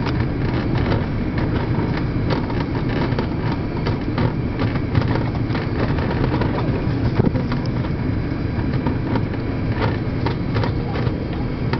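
Steady low rumble of airliner cabin noise inside an Emirates Airbus A330 on its landing approach, from the engines and the air rushing past the fuselage. Small clicks and rattles run through it.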